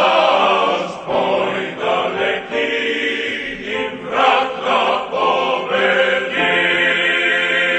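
A choir singing slow, held chords, ending on a long sustained chord near the end.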